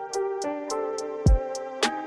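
Background music with sustained chords over a steady beat of short hits about three a second, with low drum thumps.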